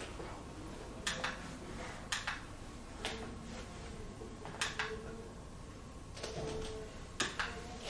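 A handful of light clicks: three about a second apart, then two more spaced out, over a faint steady hum.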